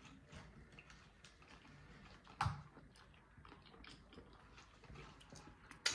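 Close-miked chewing of a double quarter pounder cheeseburger: many soft, wet mouth clicks and smacks, with one louder smack about two and a half seconds in and a sharp click near the end.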